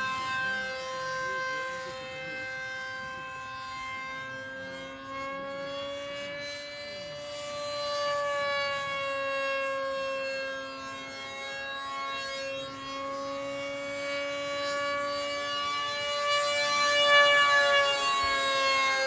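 Electric-powered homemade F-15-style RC jet in flight, its motor and fan giving a steady whine whose pitch slowly rises and falls. It gets louder near the end.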